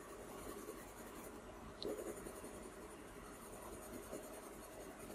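Dark indigo coloured pencil shading on paper: a faint, continuous scratching of the pencil over the paper's tooth, with a brief tick about two seconds in.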